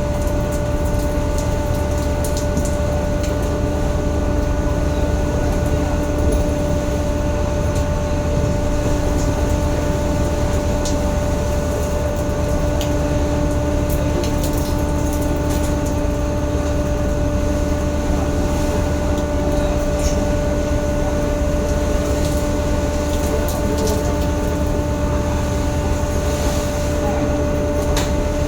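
Fishing boat's engine running steadily: a constant low drone with a hum of several fixed pitches, and a few faint clicks.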